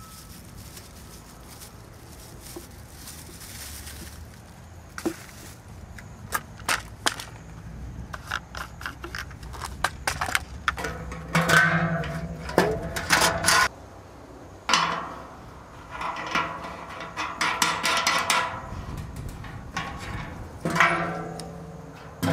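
Scattered knocks and clatter, sparse at first, then coming in louder, busier clusters through the second half.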